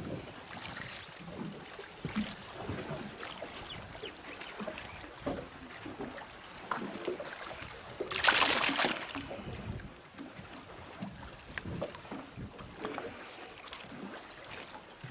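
Hooked fish thrashing at the surface beside a boat, with one loud splash about eight seconds in as its head breaks the water with the lure in its mouth. Around it, quiet water sounds and small knocks.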